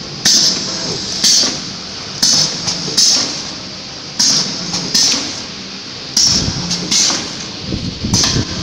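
Coretamp ZV-320L liquid sachet packing machine running in automatic mode, set to 30 bags a minute: sharp hisses of compressed air from its pneumatic cylinders about once a second, over a steady running noise.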